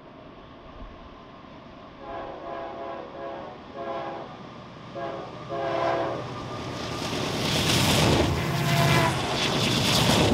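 Union Pacific diesel locomotive sounding its horn in four blasts (long, long, short, long), the grade-crossing pattern. It then passes close beneath with the heavy rumble of its engines and a rising rush of wheel and rail noise, loudest near the end.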